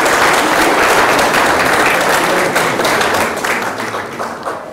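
Audience applause: many people clapping, steady, then thinning out and fading in the last second.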